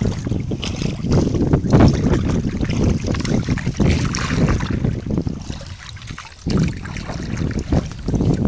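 Water splashing and lapping against the side of an inflatable boat as a paddle is worked in the water, in irregular bursts, over a low wind rumble on the microphone.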